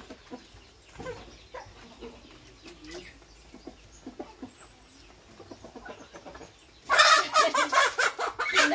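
Chickens clucking softly, then about seven seconds in a chicken breaks into loud, rapid distress squawking as it is caught and held.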